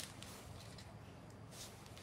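Faint metallic clicks and clinks of a steel motorcycle roller chain being handled, its links knocking together. There is a sharp click at the start and a brief clink about a second and a half in.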